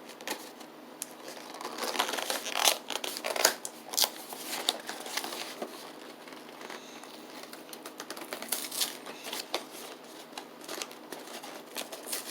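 Snack packaging being opened by hand: irregular crinkling and rustling with sharp crackles and some tearing.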